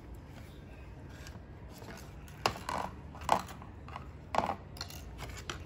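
About half a dozen short, crisp crunches of watermelon rind and flesh being cut and bitten, scattered through the second half.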